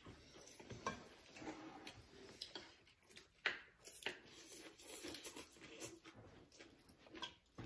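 Faint eating sounds of rice vermicelli noodles being slurped and chewed, with scattered small clicks, the strongest about three and a half seconds in.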